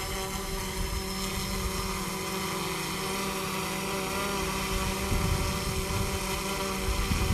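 Quadcopter drone's propellers running with a steady multi-toned whine, with low rumbling bumps about five seconds in and near the end.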